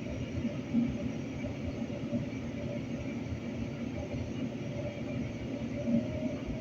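Interior of a moving light-rail train car: a steady rumble of the wheels on the track with a faint, even hum running through it.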